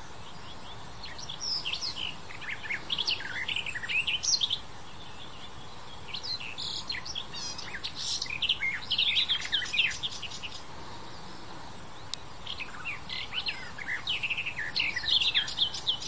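Garden warbler (Sylvia borin) singing: three long phrases of fast, even-paced warbling, each lasting several seconds, with short pauses between.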